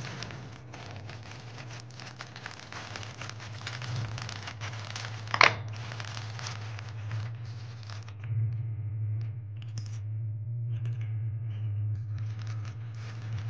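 A clear plastic bag of banana chips crinkling and crackling as a hand handles it. The crackles are dense through the first half, with one sharp, louder crackle about five and a half seconds in, and grow sparser after about eight seconds.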